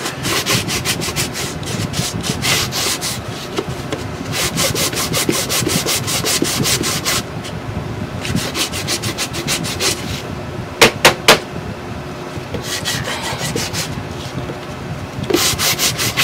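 Hand sanding block rubbed quickly back and forth over painted chipboard, sanding back a coat of antiquing cream in runs of several strokes a second with brief pauses. Three sharp taps come close together about eleven seconds in.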